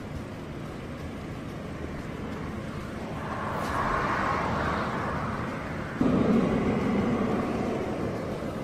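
A sudden heavy blast of a distant explosion about six seconds in, a deep rumble that fades over a couple of seconds, after a rushing sound that swells about three seconds in over a steady outdoor rumble.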